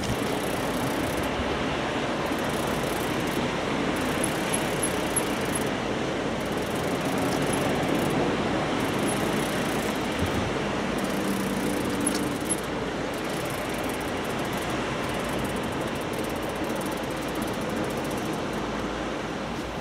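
Steady rush of wind and sea, with wind noise on the microphone.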